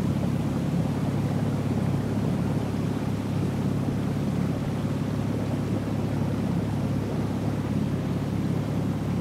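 Motorboat engine running steadily under way, an even low hum that does not change.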